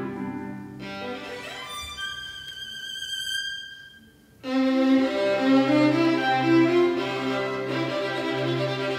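Solo violin with orchestra: the violin holds a long high note as the orchestra thins out, fading almost to nothing about four seconds in. Then the orchestra comes in suddenly with held string chords and low strings, the violin playing above them.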